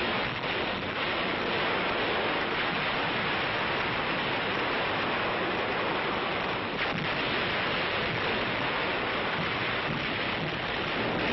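Steady rushing sea-and-wind noise on an old film soundtrack, even throughout with no separate bangs.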